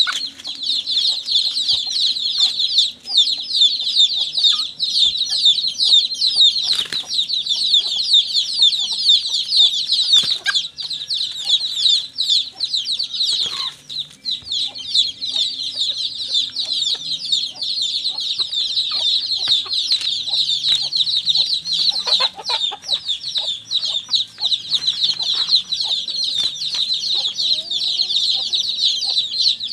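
Native chickens clucking in a yard over a dense, unbroken high-pitched chirping. A few short flurries of noise, such as wing flaps, stand out along the way.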